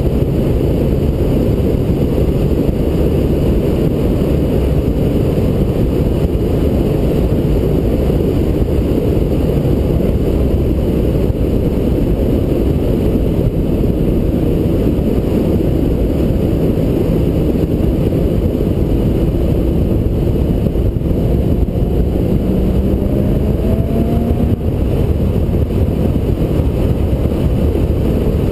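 2016 Porsche Boxster Spyder driving at speed, heard from a camera on its front bonnet: a steady, muffled low rumble of wind and road noise. The engine is faint beneath it, and its note rises briefly a little past three-quarters of the way through.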